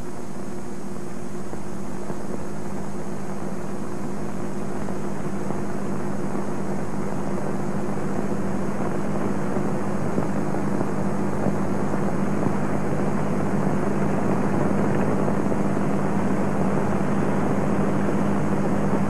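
Steady droning hum with a layer of hiss, unchanging in pitch and growing slightly louder toward the end.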